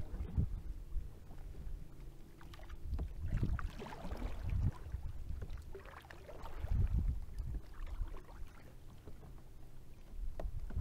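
Small waves lapping and splashing against the hull of a fishing kayak, in uneven surges with a few louder slaps.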